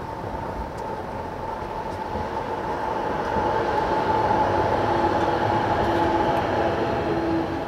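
Street tram passing close by: a steady electric whine over rolling noise that swells about three seconds in, holds, and fades near the end.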